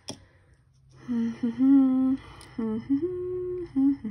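A woman humming a short tune in held, steady notes, starting about a second in, with a single sharp click right at the start.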